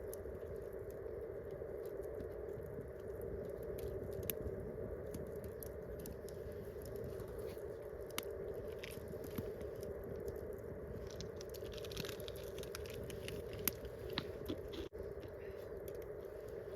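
Wood campfire crackling, with many sharp irregular pops and snaps over a steady low hiss.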